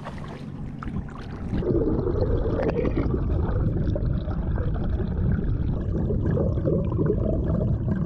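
Muffled underwater rushing and gurgling of lake water around an action camera held below the surface beside a moving kayak hull. It gets much louder about a second and a half in, when the camera goes under, after a quieter start above the water.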